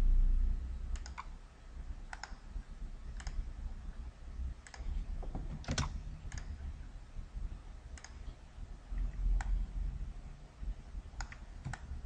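Computer mouse and keyboard clicks: about a dozen short, sharp clicks spaced irregularly, over a low hum.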